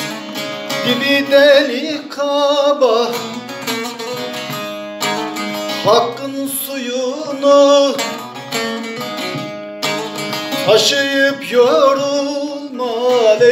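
Bağlama (Turkish long-necked saz) being strummed and plucked, with a man singing over it in three sung phrases that have short instrumental gaps between them.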